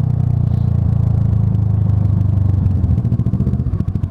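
Kawasaki ER-6n parallel-twin motorcycle engine running under way, a steady note that about three seconds in drops into an even, pulsing beat as the throttle comes off.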